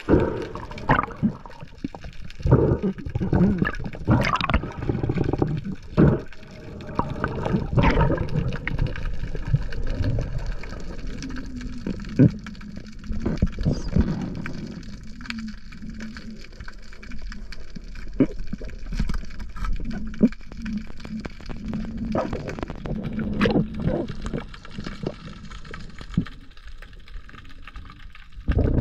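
Sea water gurgling and sloshing around the camera in uneven surges, with scattered short knocks.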